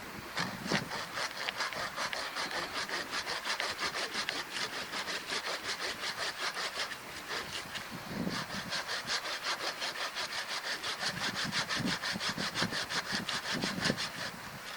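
Hand saw cutting through wood with quick, even strokes, about five a second, stopping briefly around the middle and then continuing.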